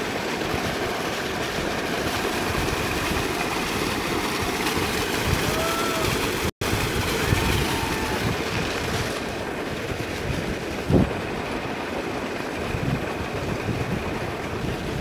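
Solar-powered, belt-driven irrigation pump running, with a heavy stream of water gushing steadily from its outlet pipe into a field channel. The sound cuts out for an instant about six and a half seconds in.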